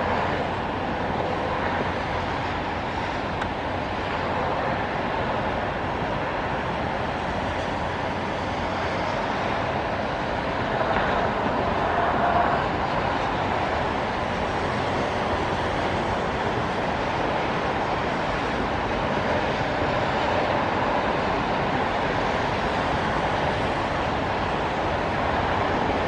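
Steady hiss and rumble of highway traffic on wet pavement, tyres swishing through standing rain water, with a slightly louder swell about halfway through as heavier traffic passes.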